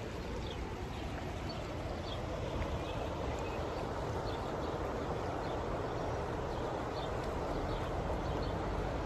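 Steady outdoor ambience: an even rushing noise with a low rumble under it, and a few faint, short high chirps scattered through it.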